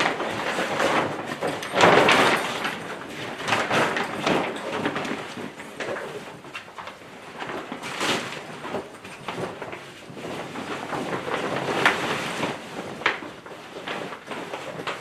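Grow-tent fabric rustling and scraping as it is pulled and stretched over the steel-tube frame, with a couple of sharp knocks near the end.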